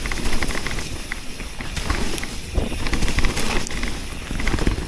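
Electric mountain bike ridden down a leaf-covered forest trail: tyres rolling over leaves and dirt, with scattered rattles and ticks from the bike over bumps. Wind rumbles on the chest-mounted camera's microphone.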